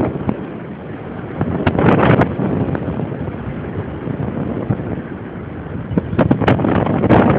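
Rushing wind buffeting the microphone of a camera carried in paraglider flight, surging in gusts about two seconds in and again near the end, with a few short crackles.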